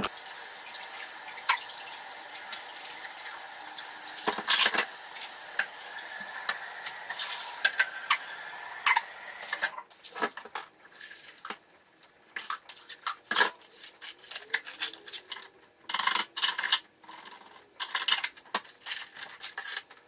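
Water running steadily from a kitchen tap, with light clinks, for about ten seconds; it stops suddenly. After that comes a string of separate clinks and knocks of cups, dishes and cutlery being handled while coffee is made.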